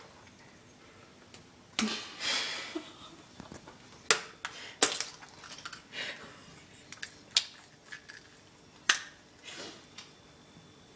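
Raw eggs being knocked against a hard tile floor by a baby, the shells cracking: a handful of separate sharp clicks and taps spaced a second or more apart, with brief rustling between them.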